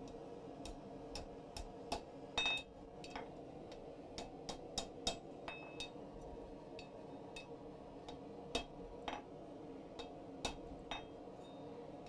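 Light, irregularly spaced hammer blows on a red-hot iron staple held over the horn of an anvil, bending it into shape; several strikes leave a short metallic ring. A faint steady hum runs underneath.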